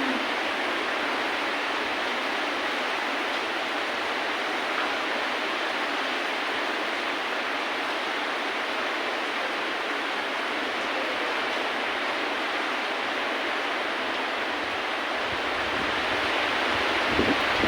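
Steady hiss of heavy rainfall, even and unbroken. A low rumble with a couple of soft thumps comes in near the end.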